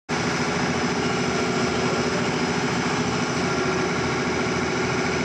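CNC machine running: a steady mechanical hum with several fixed tones over a noisy hiss, starting at once and not changing.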